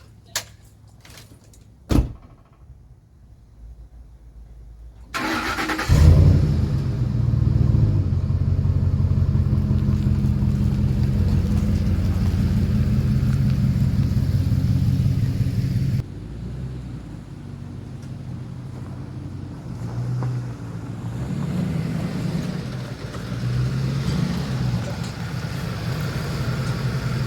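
A single sharp knock about two seconds in. A car engine catches about six seconds in and runs steadily. Its sound drops suddenly at about sixteen seconds and goes on at a lower, wavering level.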